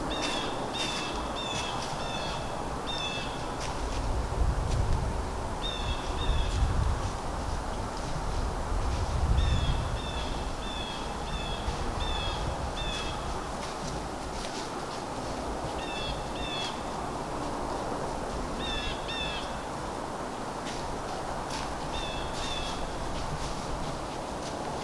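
A bird calling in runs of short repeated notes, six in a row at the start and again about ten seconds in, and pairs of notes later on. Over steady woodland background noise, with several bursts of low rumble between about four and ten seconds in.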